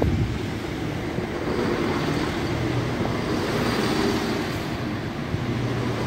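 ScotRail Class 170 Turbostar diesel multiple unit running slowly into the platform and passing close by. Its underfloor diesel engines and wheels on the rails make a steady rumble with a low hum.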